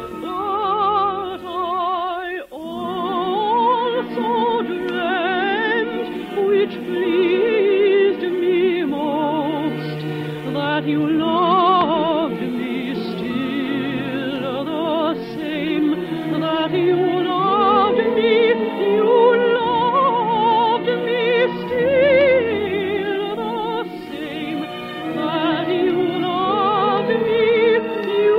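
Operatic solo singing with a wide vibrato over sustained orchestral accompaniment, from an old broadcast recording with no upper treble. A brief break in the phrase comes about two and a half seconds in.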